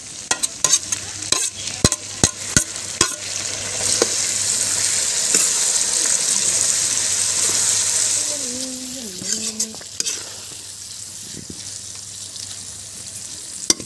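Fresh roselle leaves being stirred into pork frying in a lot of oil in an iron wok, with a metal ladle clacking against the pan in the first few seconds. A steady sizzle swells for several seconds, then eases off.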